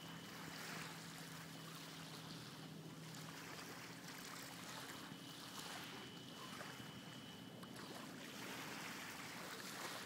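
Small waves lapping faintly on a pebble shore, a soft wash that rises and falls every second or two.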